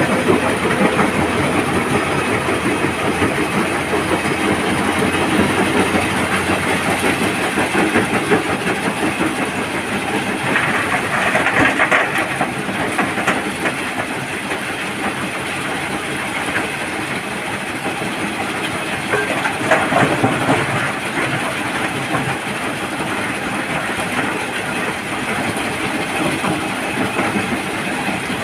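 Stone crusher and excavator working at a quarry face: a steady, loud mechanical rattle and clatter with engine noise under it. It grows louder around twelve seconds and again around twenty seconds in.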